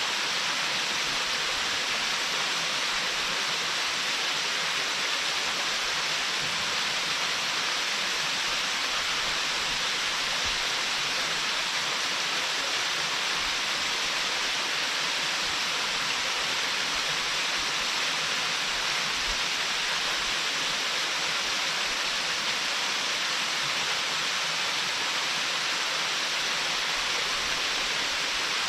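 Waterfall rushing steadily: a constant hiss of falling water, strongest in the upper-middle range and light in the low end, without a change or a break.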